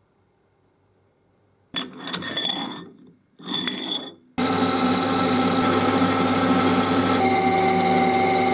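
Two brief scraping sounds, then an electric power tool starts suddenly about halfway through and runs at a steady speed.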